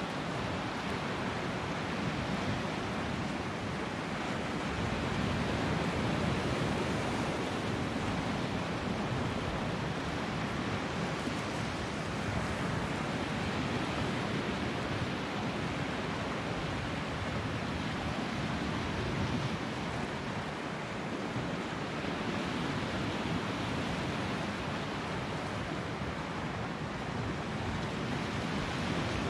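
Sea surf breaking and washing over a rock ledge: a steady rush of wave noise with no distinct events, swelling slightly a few seconds in.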